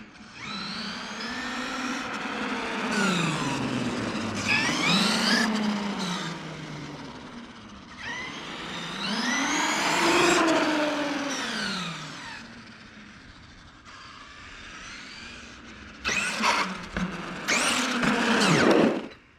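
Traxxas E-Revo 2.0 electric RC truck driving, its motor whining up and down in pitch with the throttle in several runs, with louder, sharper bursts near the end. No grinding: the repaired differential is running as good as new.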